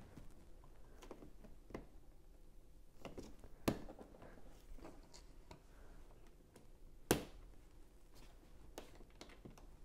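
Plastic Lego pieces being handled and pressed into place: scattered light clicks and taps, with two sharper clicks, one about three and a half seconds in and one about seven seconds in.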